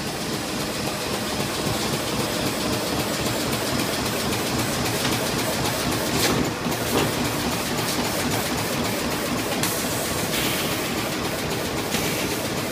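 Hemingstone plastic bag-making machine running: a steady mechanical clatter made of rapid repeated clicks, with a few sharper clicks in the second half.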